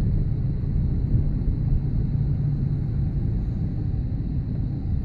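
Pontiac Sunfire heard from inside the cabin while driving: a steady low rumble of engine and road noise.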